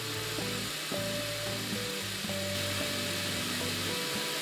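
Electric blender running steadily as it mixes cake batter, a hissing whir, under background music of short melodic notes.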